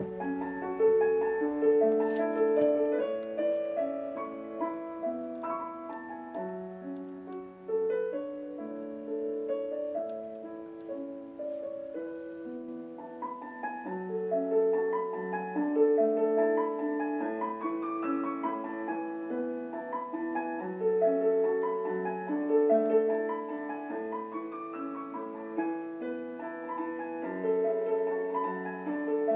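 Background music: a solo piano playing a melody over chords.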